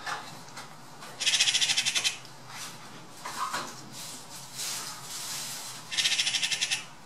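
Eurasian magpie chatter: two harsh, rapid rattling bursts, each under a second long, about a second in and again about six seconds in, with fainter scratchy sounds between. It is the alarm chatter magpies give when mobbing a bird of prey.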